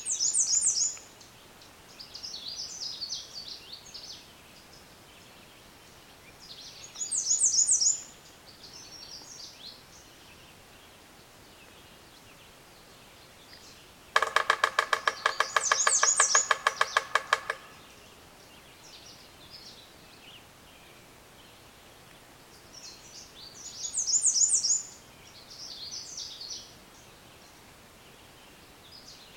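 Woodpecker drumming on a metal sign: one fast, loud roll of strikes lasting about three and a half seconds, the sign ringing with each hit. Short high bird song phrases repeat every several seconds.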